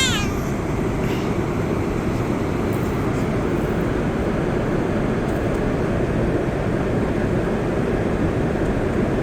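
Steady airliner cabin noise: the constant rumble and hiss of jet engines and airflow heard from inside the plane, without change.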